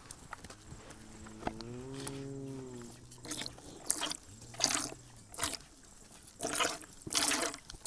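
A cow moos twice: a long low call near the start and a shorter one around the middle. From about three seconds in, short hissing squirts of milk from hand-milking come every half second to a second.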